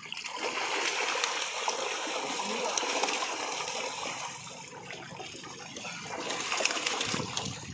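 Many crowded fish thrashing and splashing in the water as a net is drawn in tight around them. The splashing is heaviest in the first few seconds, eases, then picks up again near the end.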